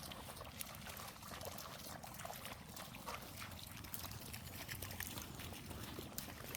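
Faint trickling water with many small, irregular ticks and splashes.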